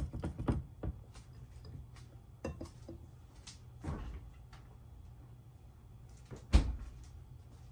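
Wire whisk beating batter in a glass bowl, its wires clicking rapidly against the glass, stops within the first second. A few scattered knocks follow, then one loud knock near the end.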